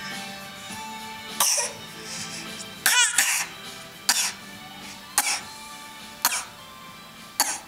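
A baby fake-coughing: a series of short, deliberate coughs about once a second, over soft background music.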